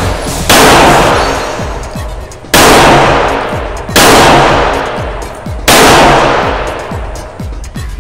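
Four shots from a Ruger Speed Six revolver firing .38 Special rounds, spaced about one and a half seconds apart, each ringing out with a long echo that dies away in the indoor range. Background music runs underneath.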